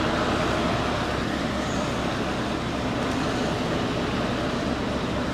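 Lorry's engine running steadily, heard from inside the cab as an even rushing drone.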